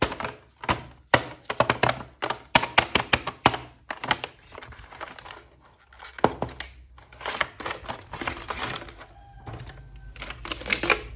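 Irregular run of sharp plastic clicks, taps and knocks, several a second, as a toy action figure's packaging is opened and the figure handled.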